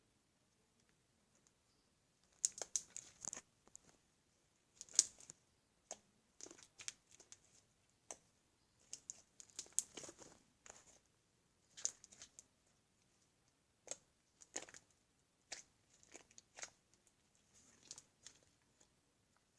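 Slime being worked by hand, giving short crackling pops at irregular intervals, some in quick clusters.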